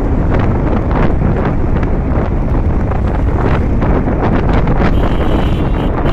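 Loud, steady wind noise on the microphone of a moving motorcycle.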